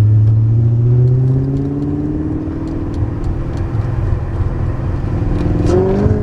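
BMW E39's engine pulling under acceleration, heard from inside the cabin: its note climbs over the first couple of seconds, then holds steady.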